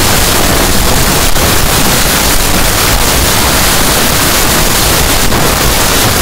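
Loud, harsh, steady distorted noise filling everything from deep bass to treble, with no clear tone in it: a logo's sound run through extreme digital audio effects.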